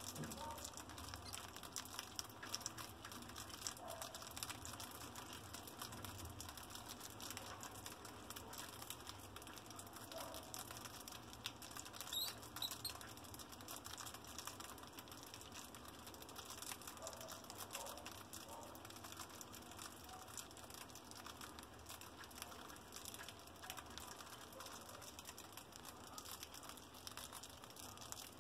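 A group of mice nibbling food and scrabbling on a tiled floor: a faint, continuous patter of tiny clicks and crunches.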